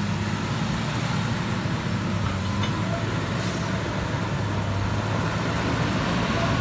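Caterpillar 140K motor grader's diesel engine running steadily with a deep hum as the machine works past, growing a little louder toward the end as it comes closer.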